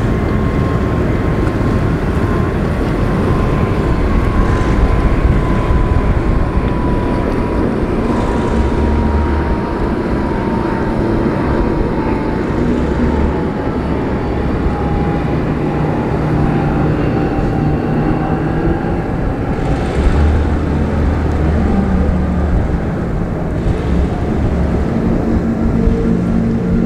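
Twin outboard engines of a Marine Technology catamaran powerboat running hard at speed: a steady drone with a high whine that slowly falls in pitch.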